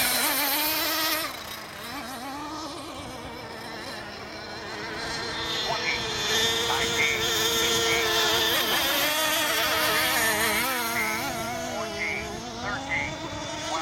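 High-pitched whine of racing model hydroplane engines, wavering up and down in pitch as the boats run the course. It drops off for a few seconds about a second in, then grows louder again.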